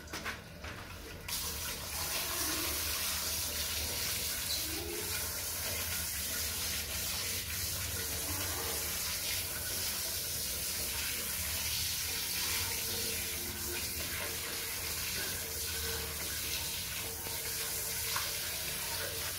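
Water pouring in a steady stream from a hose onto a computer motherboard and splashing on a tiled floor, starting about a second in. A brush scrubs the board under the running water.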